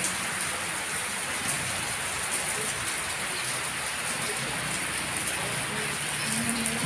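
Heavy rain pouring down steadily, an even hiss of rain on roofs and the flooded street.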